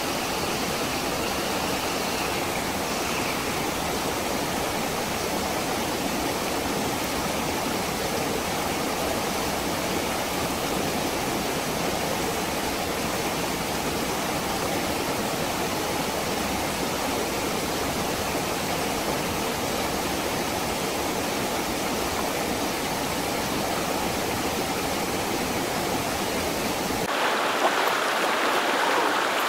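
Steady rush of a shallow rocky river running over boulders. Near the end it turns brighter, with less low rumble.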